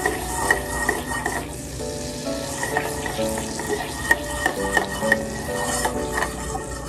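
Butter melting and sizzling in a small stainless-steel saucepan as the pan is swirled on a steel flat-top, with scattered small pops and clinks; the butter is coming up to a bubble without browning, the stage at which the flour goes in for a béchamel roux. Faint background music with held notes underneath.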